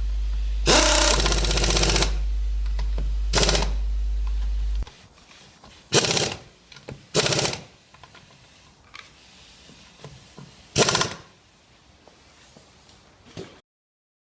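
A steady low hum that cuts off about five seconds in, with several short, loud bursts of rapid mechanical rattling.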